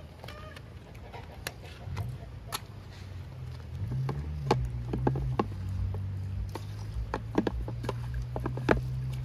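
Hands mixing raw chicken pieces, onion and tomatoes in a metal pan: a run of wet squelches and sharp clicks against the pan, busier in the second half, over a low steady hum. A chicken clucks briefly near the start.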